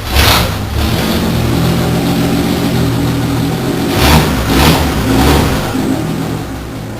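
Willys Rural's 4.1-litre straight-six engine running just after a start: a quick rev at the start, a steady fast idle, then three sharp revs about half a second apart around the middle before it drops back to a lower idle near the end.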